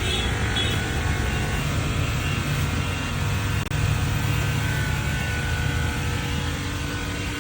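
Bajaj Pulsar motorcycle engine running steadily, with a brief break in the sound about halfway through.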